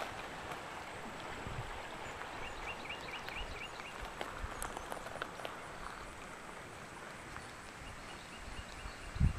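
Steady rush of river water below a dam, with a bird calling a quick run of about six short rising chirps about two and a half seconds in, and one low thump near the end.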